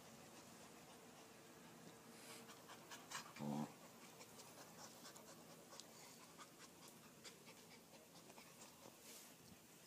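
Puppy and kitten play-wrestling: faint scuffling and soft clicks, with one short, loud dog vocal sound, a low grunt, about three and a half seconds in.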